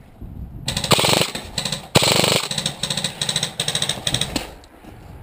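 Airsoft electric rifle firing on full auto in several rapid bursts, starting about a second in and stopping a little before the end.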